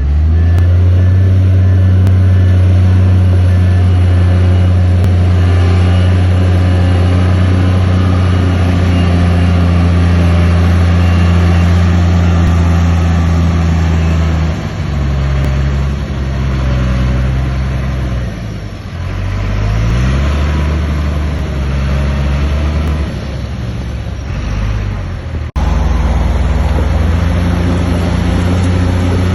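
Heavy diesel engine of earth-moving equipment running loud and steady, then changing speed up and down several times over its second half; the sound cuts abruptly to a steady engine again near the end.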